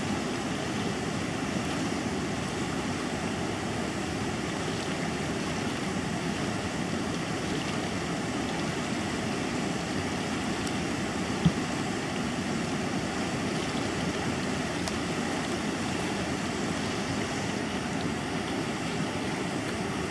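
Class 3 whitewater rapids rushing steadily over rocks. A single sharp knock stands out about halfway through.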